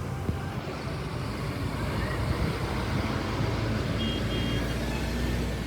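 Steady low rumble of a motor vehicle on the road, engine and road noise running evenly.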